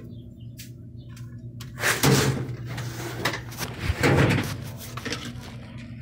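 Two loud bursts of clattering, scraping noise, about two seconds apart, over a steady low hum.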